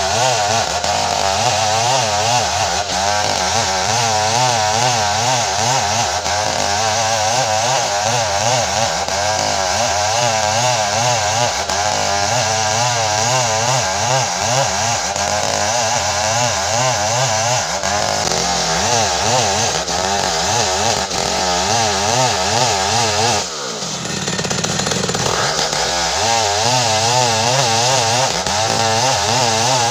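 Custom-built 070-type two-stroke chainsaw running at high revs under load, cutting ironwood, its pitch wavering. About 23 seconds in, the revs fall away sharply, then climb back up a couple of seconds later.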